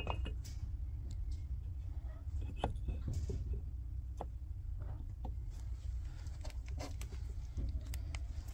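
Scattered light clicks and taps of engine parts and tools being handled, over a steady low hum.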